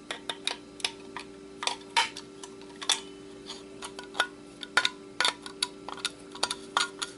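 Light metallic clicks and ticks, irregular and several a second, of a screwdriver working at the screw of a hard drive's actuator arm, over a steady low hum.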